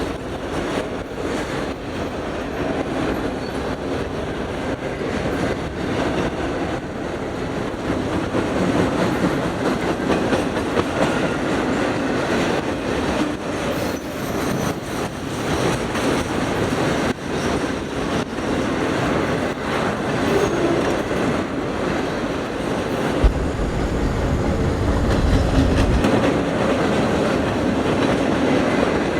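Freight train cars rolling past at steady speed, their wheels clicking over the rail joints.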